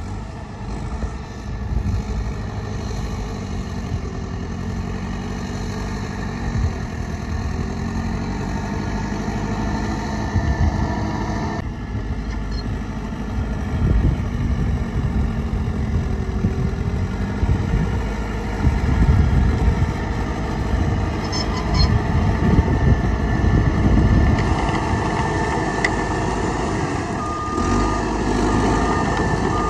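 Heavy diesel construction machinery working, its engines running continuously and swelling and easing in loudness. Near the end a reversing alarm beeps several times.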